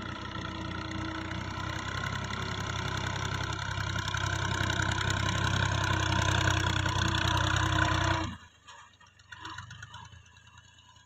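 Diesel tractor engine running steadily and growing louder, then cutting off abruptly about eight seconds in.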